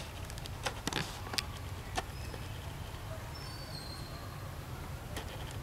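Forest ambience: a steady low rumble, with a few sharp clicks in the first two seconds and once more near the end, and a few faint high chirps in the middle.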